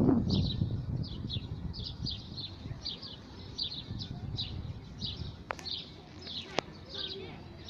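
Small birds chirping, short high chirps repeating two to three times a second. Two sharp clicks about a second apart come near the end.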